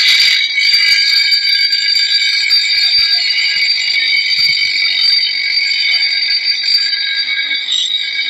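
Bench grinder's abrasive wheel grinding the edge of a long steel bolo, a steady high-pitched screech of metal on the wheel.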